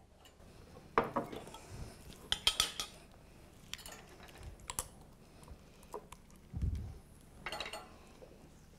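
Wooden spatula clattering and scraping against a jar of vegetable fat and a frying pan as the fat is scooped into the pan: a series of short clinks and knocks, with one dull thump about two-thirds of the way through.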